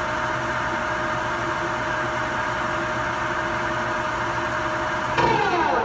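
CNC turning-center lathe running with a steady whine at constant spindle speed. About five seconds in it gets louder, and the whine falls quickly in pitch as the spindle decelerates to stop.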